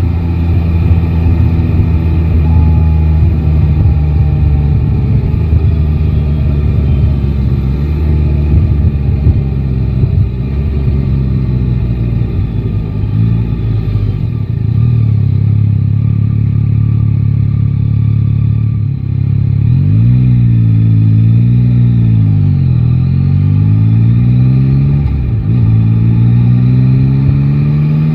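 Yamaha Tracer 9 GT's three-cylinder engine under way, heard close up. The revs sink slowly through the first half, climb and drop back about twenty seconds in, then rise steadily again near the end as the bike accelerates.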